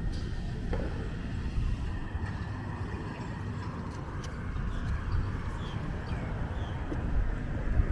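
Street traffic ambience: a steady low rumble of passing vehicles, with a few faint scattered clicks and high chirps.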